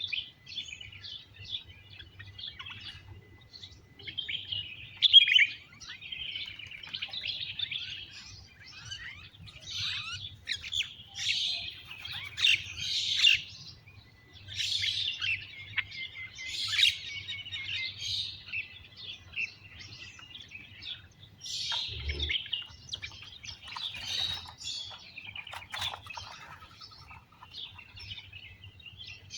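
Many small wild birds chirping and twittering together in dense, overlapping bursts. A single brief low thump comes about two-thirds of the way through.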